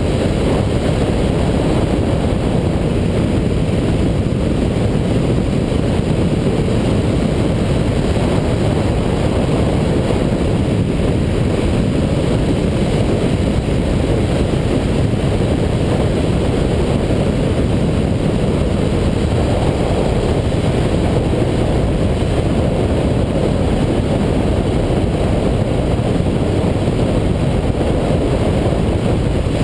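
Steady noise of a Yamaha FZ1 inline-four motorcycle cruising at road speed, heard from a camera on the bike. A low, even rush of wind on the microphone mixed with engine and road noise, unchanging throughout.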